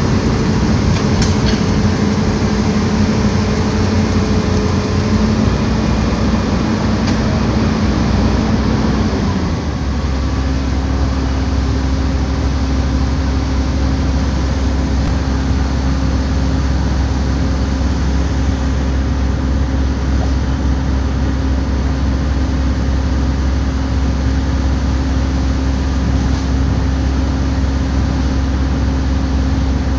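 Bulldozer's diesel engine running under load while dragging logs, with tracks and machinery noise; the engine note changes about a third of the way in and then holds steady.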